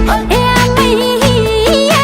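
Loud South Asian pop-folk song with a high sung melody full of quick ornaments, over a steady beat.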